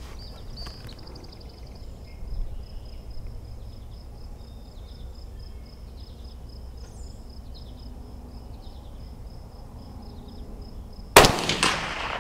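A single rifle shot from a Mossberg 640K Chuckster .22 Magnum bolt-action about eleven seconds in: one sharp crack that rings off over most of a second. Before it, a steady high, evenly pulsing insect chirp.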